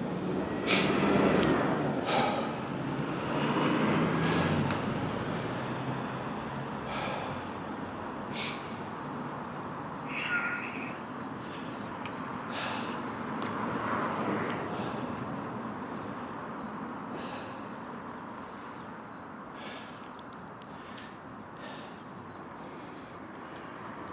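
Steady wind and tyre noise from a bicycle being ridden, with scattered sharp ticks and rattles. A motor vehicle passes during the first few seconds, its engine sound fading by about five seconds in.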